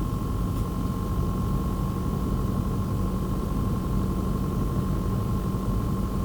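Phanteks PH-F140XP 140 mm fan running steadily, a constant high whine over a low rumble, the noise fault the owner is showing. A lower steady hum joins about half a second in.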